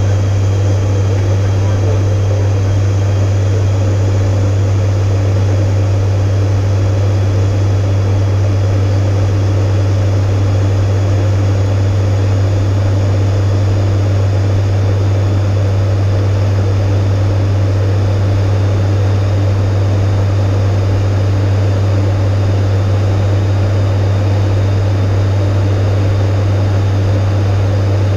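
ATR 72-500's turboprop engines and six-bladed propellers droning steadily in flight, heard inside the cockpit: a loud, unchanging deep hum with one strong low tone.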